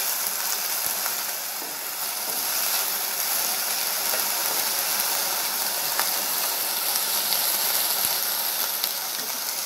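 Fresh mint leaves, dried red chillies and coriander seeds sizzling in hot oil in a metal pan while a flat spatula stirs them, with a few light taps of the spatula against the pan. The sizzle is the leaves' moisture cooking off as they are roasted on low heat.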